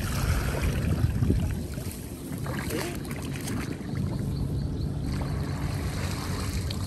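Shallow muddy water splashing and sloshing as a woven basket and a man's hands work through it, with a low rumble of wind on the microphone.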